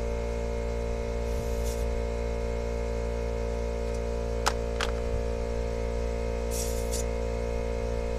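McGraw 8-gallon 1.5 HP oil-free air compressor running with a steady electric-motor hum while a tire is being aired up, then cutting off right at the end. Two short hisses and a couple of clicks sit over the hum.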